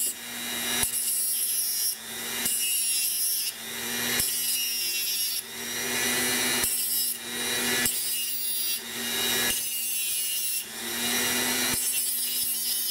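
A Dremel rotary tool with a cutting disc grinding the head of a steel nail flat, in about ten repeated passes of a second or so each with short breaks between them.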